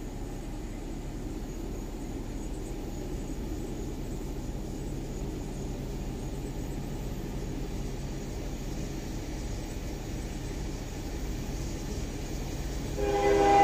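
Diesel locomotives of an approaching freight train, a low steady rumble growing slowly louder. Near the end the locomotive's air horn starts sounding, a chord of several steady notes that is much louder than the rumble.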